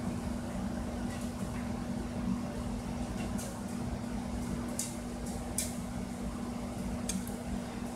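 Steady low hum over room noise, with a few faint, brief scratchy sounds.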